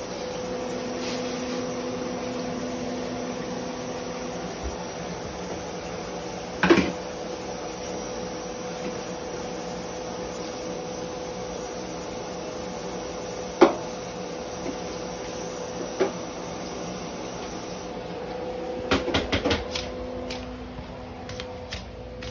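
Steady hum of a running kitchen appliance, with a few sharp knocks of kitchenware being handled at the sink: single knocks about seven, fourteen and sixteen seconds in, and a quick run of clatters near the end.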